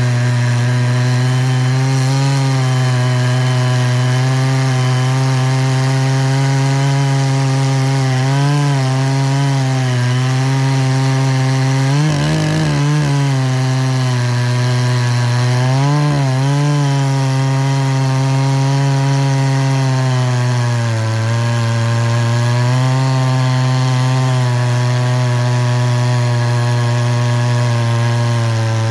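A power tool's motor running steadily, with a strong even hum. Its pitch dips briefly several times, about a third of the way in and near the middle, as it takes load.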